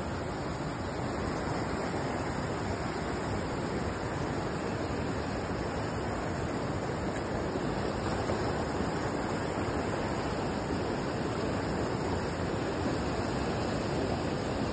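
Heavy rain pouring down in a steady, dense hiss onto standing floodwater.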